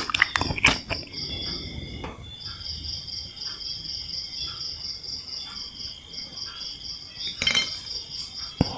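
A few crunchy chews of sugar-coated jelly candy in the first second, then a cricket chirring in quick, even pulses in the background. A brief rustle-like burst comes about seven and a half seconds in.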